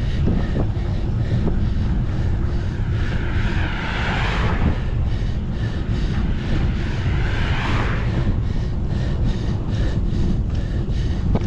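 Wind buffeting the microphone of a camera riding on a moving bicycle, with two vehicles passing in a rising and falling whoosh about four and seven and a half seconds in.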